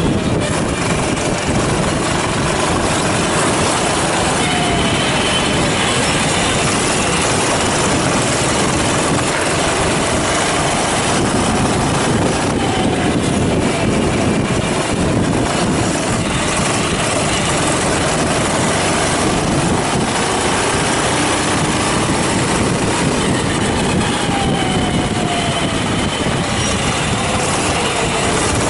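Go-kart engines running on the track, their pitch rising and falling with speed over a steady, noisy rumble.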